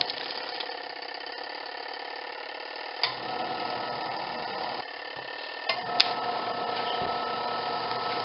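Auauna portable twin-tub washing machine's wash motor running steadily, churning a load of clothes in soapy water, with a few sharp clicks, the sharpest about six seconds in.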